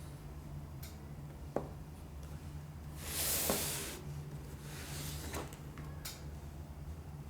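Camera box and packaging being handled: a sharp click about one and a half seconds in, then a rustling, sliding scrape lasting about a second around the middle, with a few faint ticks, over a steady low hum.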